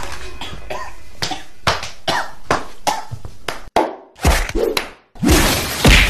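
Rapid slaps and thumps of open hands striking a person's back, many blows in quick succession, with a louder jumble of noise near the end.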